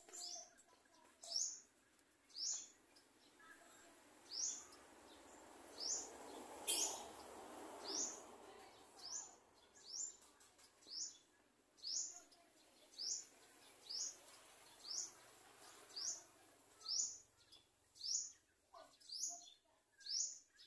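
Sunbird chirping: a run of short high chirps, each falling in pitch, about one a second. A soft rushing noise swells and fades in the middle.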